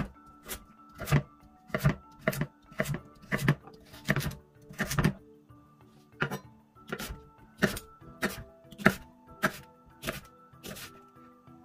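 Chef's knife chopping carrot and then green onion on a wooden cutting board: a sharp knock of the blade on the board about every half second, with a short pause about halfway through. Soft background music underneath.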